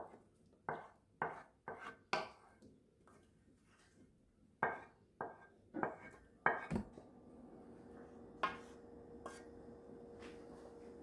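A utensil scraping thick white sauce out of a skillet into a bowl of chopped chicken, in short strokes about two a second that stop for a moment partway through. A faint steady hum runs under the second half.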